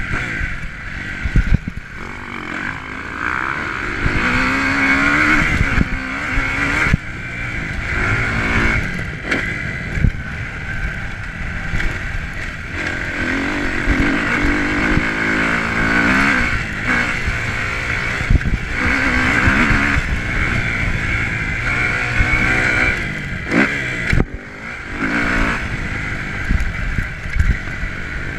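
Kawasaki KX250F motocross bike's single-cylinder four-stroke engine heard from on board, revving up and falling off again and again as the rider works the throttle and gears around the dirt track, with a few sharp knocks along the way.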